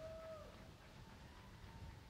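Near silence with a faint short pitched call at the start that dips in pitch as it ends, and a fainter thin tone about a second later.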